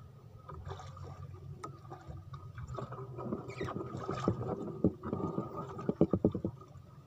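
Handline being hauled in hand over hand from a small boat, with water sloshing and knocking at the hull. A hooked fish splashes at the surface beside the boat in a quick flurry near the end.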